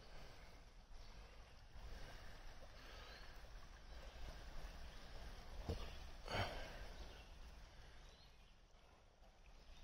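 Faint, steady hiss of a shallow creek running over rocks, with two brief bumps a little over halfway through, the second louder.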